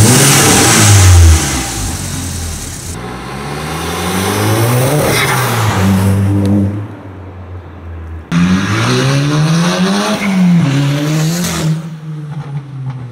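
Seat Leon Cupra engine revving hard through an aftermarket exhaust with a remote-controlled bypass valve: a few quick blips at the start, then the car accelerating away with the engine note rising and falling twice.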